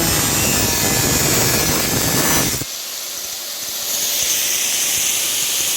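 Loud rushing hiss of a workshop tool working on the car's bodywork. It is full and heavy for the first two and a half seconds, then drops suddenly to a thinner, high-pitched hiss.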